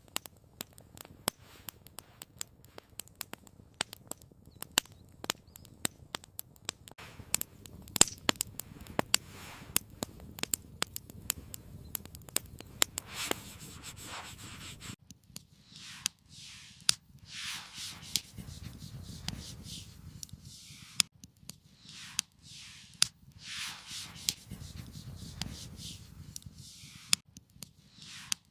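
Wood campfire crackling with many sharp pops. From about halfway, a steady series of scraping strokes roughly once a second joins in.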